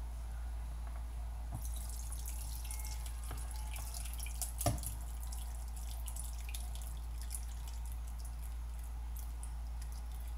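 Liquid from grated carrots dripping and trickling through a fine mesh strainer into a glass bowl, in many small irregular drips and splashes, with a single sharper knock about four and a half seconds in, as the spatula scrapes the mix from the steel pot.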